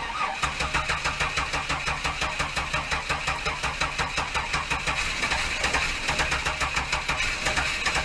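Chevy Astro van's V6 cranking on the starter, heard loud through the open engine cover, an even chugging of about four pulses a second without catching: the hard starting that the owner puts down to moisture in the distributor with clogged distributor vents.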